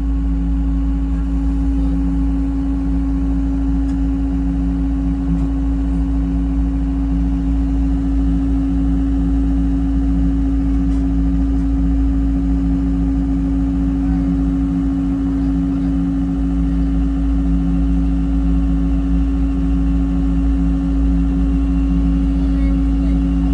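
Gehl V270 skid steer's diesel engine running steadily at a constant speed, with a deep, even drone.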